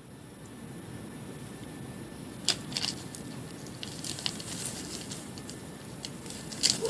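Turkey vulture scrabbling on loose gravel and tugging at a rope-and-wooden-block toy, with wing feathers rustling: scattered crunches and clicks over a steady low background rush, the sharpest about two and a half, three, four and six and a half seconds in.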